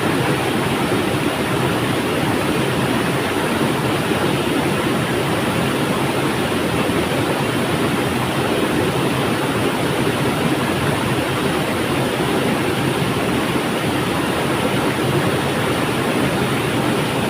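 River water flowing, a steady, even rush with no breaks or distinct splashes.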